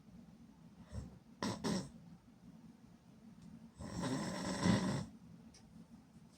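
A sleeping person snoring: a few short breaths in the first two seconds, then one long, loud snore of over a second about four seconds in.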